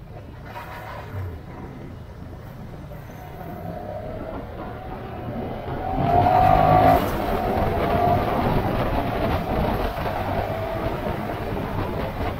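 Motor vehicle running on the road, engine and road noise growing louder about halfway through, with a pitched engine note coming up briefly at the loudest point.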